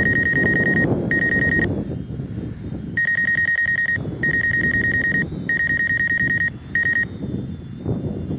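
Rapid electronic warning beeping from the DJI Phantom 4's controller and app, a fast-pulsing tone in bursts of about a second with short gaps. Beneath it, the drone's motors whir, spinning 3D-printed PC-fan propellers, along with wind noise.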